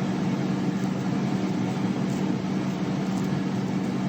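Steady mechanical hum with a constant hiss, from a machine running without change.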